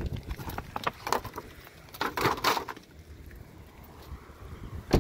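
Handling noises as wiper-blade packaging is set down on a car seat: scattered clicks and knocks, and a short crinkle of plastic about two seconds in. Near the end comes one sharp thud of the car door shutting.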